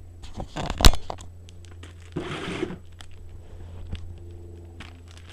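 Toy packaging and its contents being handled: a sharp knock about a second in, a half-second rustle of paper or plastic a little after two seconds, and scattered small clicks.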